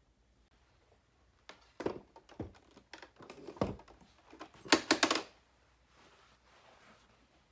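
Objects being handled indoors: a run of separate clicks and knocks from about one and a half seconds in, with the loudest quick cluster near five seconds, then quiet again.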